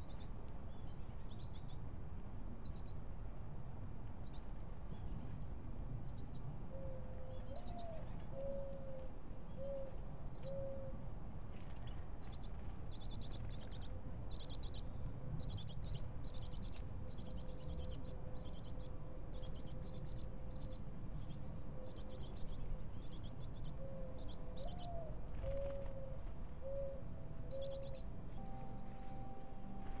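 Backyard birds chirping in quick runs of high, thin notes, busiest in the middle. Twice, a faint low cooing phrase of a few notes sounds behind them.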